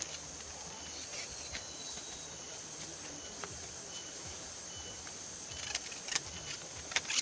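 A steady, high-pitched insect chorus, pulsing regularly about once or twice a second, with a few faint clicks and ticks near the end.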